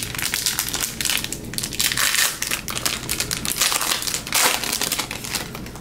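Foil wrapper of a baseball card pack crinkling and crackling as hands crumple and pull it open, with louder rustles about two seconds in and again near four and a half seconds.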